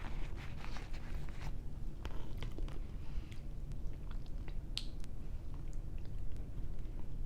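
Close-up chewing and mouth sounds of someone eating cocktail shrimp, with scattered small wet clicks and smacks.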